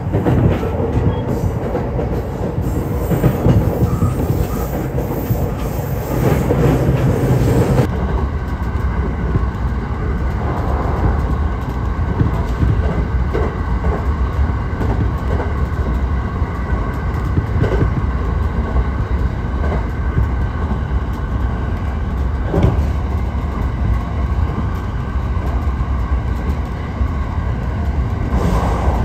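Train running on rails: a steady, loud rumble with a few scattered knocks of the wheels, the noise changing abruptly about eight seconds in.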